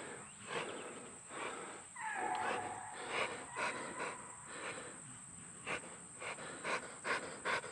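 Hunting dog panting hard, with quick rasping breaths about every half second, worn out after a chase in the heat. A brief high whine comes about two seconds in.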